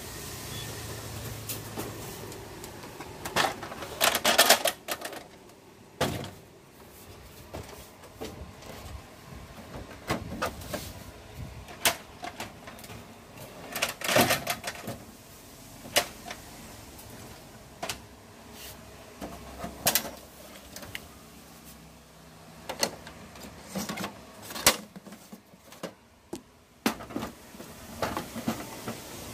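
Plastic covers and latches of a Kyocera FS-6525 MFP photocopier being opened and handled: scattered clicks and knocks, with clusters of rattling about four seconds in and again around fourteen seconds.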